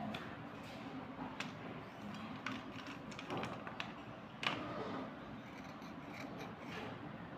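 Wet slate pencils being rubbed between fingers and scraped with a knife blade over a bowl of water. The scraping goes on softly throughout, with irregular sharp clicks and taps of slate on slate; the strongest click comes about four and a half seconds in.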